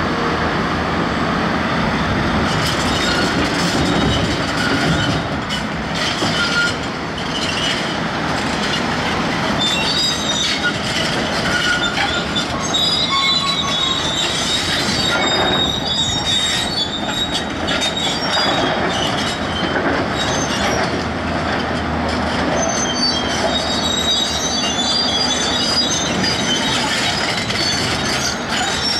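Heavy machinery running continuously, with high-pitched metallic squeals and clanks over the engine noise.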